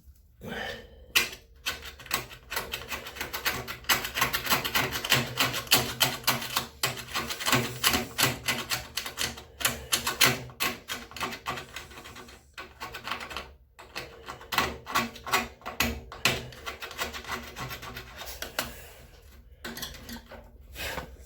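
Rapid, irregular rasping strokes of hard limescale deposit being scraped off a disassembled LG washing-machine part, busiest in the middle of the stretch.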